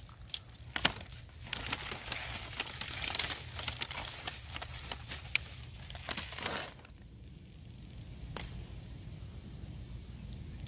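Brown paper bag crinkling and rustling as handfuls of freshly picked greenbrier (smilax) shoots are stuffed into it, with many small crackles; it stops about seven seconds in, and one sharp click follows a little later.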